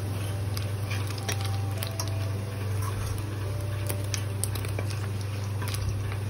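Hot oil with whole spices crackling and sputtering in a stainless-steel kadai, with scattered sharp pops and clicks as the fried paneer cubes are lifted out with a spoon, over a steady low hum.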